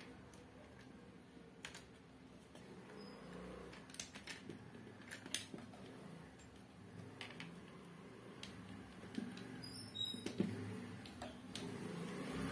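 Faint scattered clicks and rustles of wires being twisted onto a socket terminal inside a plastic extension board, with the occasional tap of the plastic casing.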